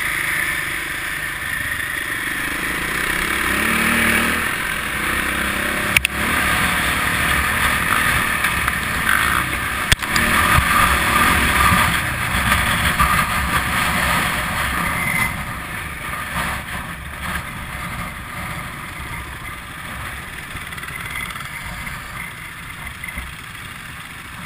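Dirt bike engine running under way on a loose gravel track, with two sharp knocks about six and ten seconds in. The sound drops in level from about halfway through as the bike slows to a stop.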